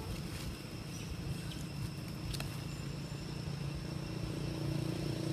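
A motor vehicle engine running, a low hum that grows louder toward the end, over a steady high insect drone.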